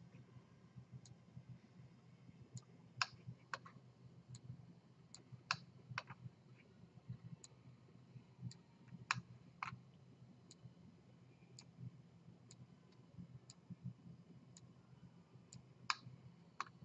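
Computer mouse button clicking: single sharp clicks at irregular intervals, roughly one a second, over a faint steady low hum.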